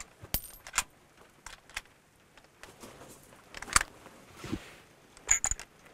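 Bolt-action rifle's bolt worked by hand to eject the spent case and chamber the next round: a scattering of sharp metallic clicks, the loudest about four seconds in.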